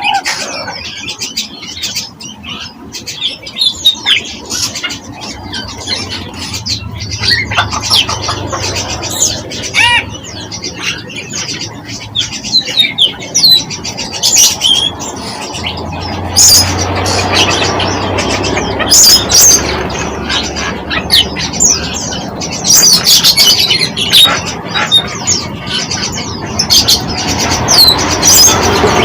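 Small birds chirping and calling: many short, sharp chirps and quick trills, coming thicker in the second half.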